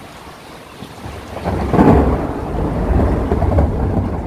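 Thunder rumbling over steady rain: the deep rumble swells about a second in, is loudest a moment later, and keeps rolling.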